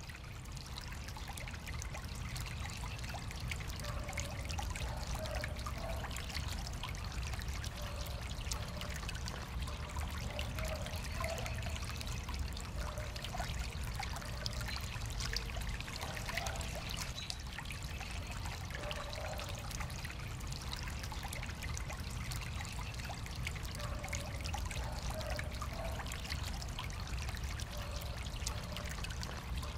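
Bubbler jet in a stone fountain bowl, water welling up and splashing back onto the surface of the basin in a steady trickling splash. It fades up over the first second or two.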